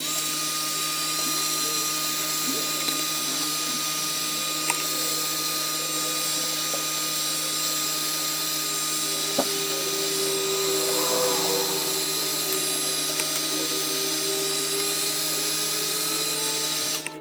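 Heat gun blowing steadily on the dirt bike's wheel hub, heating it so the wheel bearing will come loose. It runs at an even pitch and cuts off abruptly near the end, with a few faint ticks along the way.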